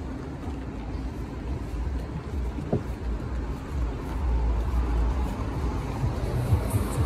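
Road traffic, with a delivery truck's engine rumbling as it approaches along the street, growing louder in the second half.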